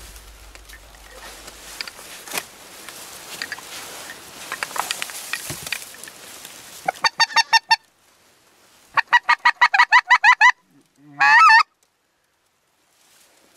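Low rustling, then from about seven seconds in loud goose honking in quick runs: a short run of rapid honks, a longer run of about a dozen, and one drawn-out wavering call near the end.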